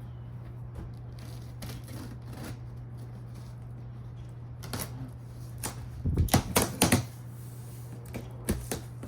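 Boxed patio furniture parts and cardboard packaging being handled: scattered sharp knocks and clicks, then a quick, loud run of rattling knocks about six seconds in, over a steady low hum.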